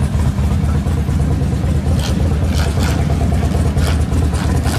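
Sport motorcycle engine idling steadily, with a low, even exhaust note.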